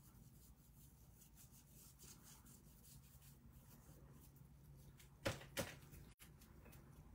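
Very faint rubbing of a paintbrush spreading a water-based sealer over a wooden box lid, with two short knocks a little after five seconds in.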